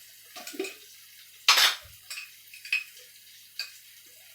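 Kitchen utensils clinking and knocking against cookware: a few light clicks and knocks, with one louder clatter about a second and a half in.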